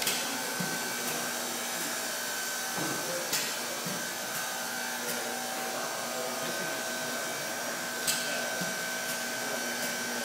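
Steady hiss and whir of the running machinery and air supply of a robotic book-binding cell, with a steady hum under it. A few sharp clicks sound at intervals: at the start, a little past three seconds in, and about eight seconds in.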